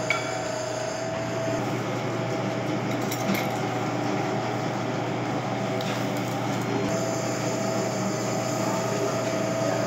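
Steady whir and hum of commercial kitchen ventilation machinery with a constant tone, and two light clinks of metal about a third of a second and three seconds in.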